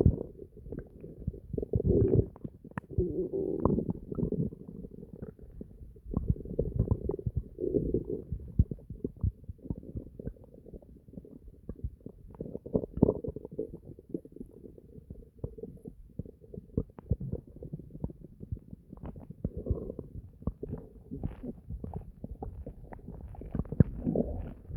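A person's stomach gurgling and growling (bowel sounds): constant low bubbling with irregular crackling pops. It swells into louder gurgles in uneven spells, around two, four, seven and thirteen seconds in, and again near the end.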